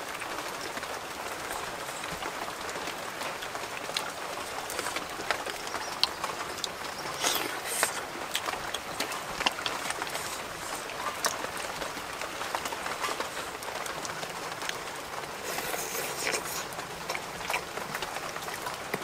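Cooked snails being eaten by hand: scattered short clicks of shells and a stick, with chewing, over a steady background hiss.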